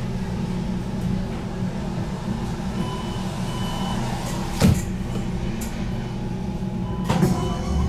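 HTM GTL8 tram running, heard from on board: a steady low hum of the drive and car body, with one sharp knock a little past halfway.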